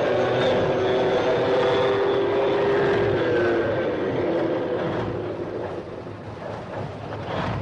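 Tank running with its tracks moving: a steady mechanical clatter under a whine that dips slightly in pitch about three seconds in, easing off after about five seconds.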